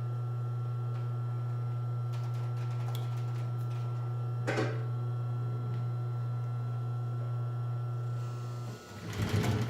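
Steady low hum of the Pfaff 545 H4 industrial walking-foot sewing machine's motor running idle, with a single click about four and a half seconds in. Near the end the hum dips and the machine starts stitching through thick leather.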